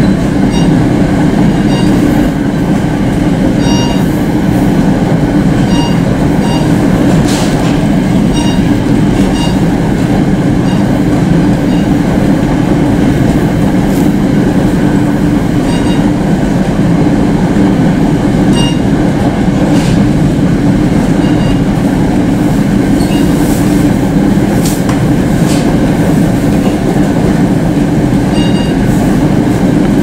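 Inside a moving NJ Transit commuter train: a steady, loud low rumble of the wheels on the track, with a few sharp clicks now and then.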